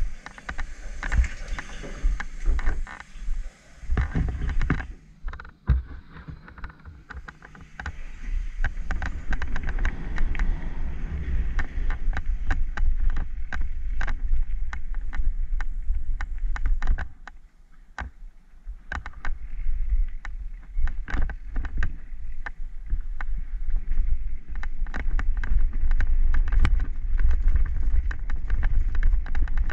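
Downhill mountain bike heard from a helmet camera: tyres rumbling over gravel and dirt trail, wind on the microphone, and frequent sharp knocks and rattles from the bike over roots and rocks. In the first few seconds, the chairlift's top-station machinery clatters.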